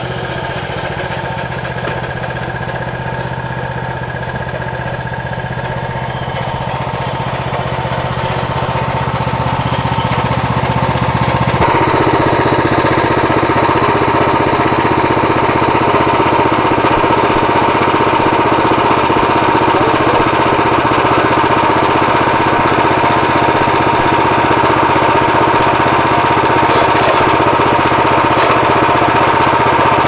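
Portable band sawmill's petrol engine running steadily. About twelve seconds in it suddenly gets louder and a steady higher tone comes in over it.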